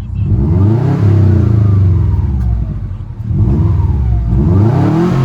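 2008 Subaru STI's turbocharged 2.5-litre flat-four revved twice through a new Invida N1 Race exhaust: the pitch climbs, holds and drops back toward idle, then climbs again about three seconds in.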